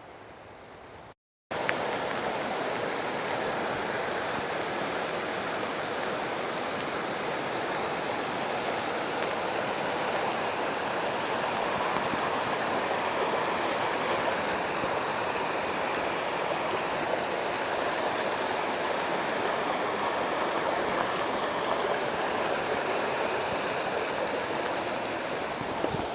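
Steady rushing roar of waterfalls and streams swollen by days of heavy rain. A brief dropout about a second in, then the water noise comes in louder and stays even.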